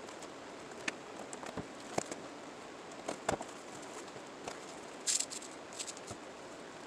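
A few light, scattered clicks and taps over a steady background hiss, with a short cluster of sharper clicks about five seconds in.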